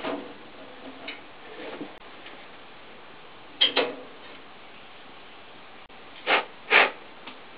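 A few short clicks and knocks of hands handling parts of an opened wall-mounted gas boiler: one at the start, a quick pair about four seconds in, and two louder knocks half a second apart near the end, over a steady low hiss.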